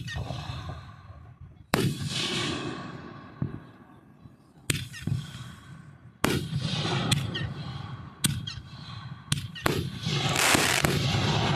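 Aerial fireworks going off: about nine sharp bangs at uneven spacing, each trailing off in a fading rumble. Near the end comes a loud stretch of dense crackling.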